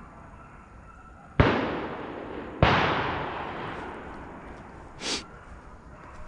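Two loud shotgun blasts about a second and a quarter apart, each followed by an echo dying away over a second or more, as from buckshot shots at deer. A brief, higher sound follows about five seconds in.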